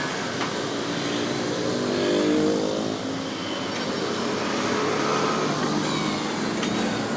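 Diesel engine of heavy machinery running and revving, rising in pitch about two seconds in and then settling back.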